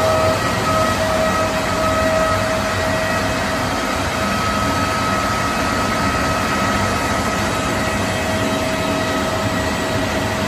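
Trenitalia E.464 electric locomotive and its double-deck coaches rolling slowly through a covered station platform: a steady rumble of wheels on rail with a steady electric whine.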